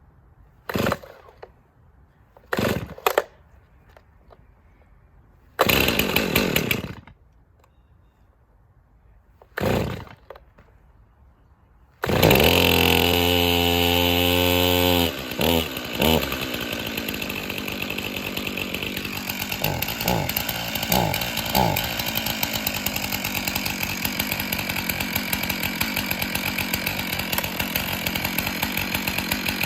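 Two-stroke chainsaw being pull-started cold: several short pulls on the starter cord with pauses between them. About twelve seconds in the engine catches and runs at high revs for a few seconds, drops back with a couple of blips, then settles into a steady idle.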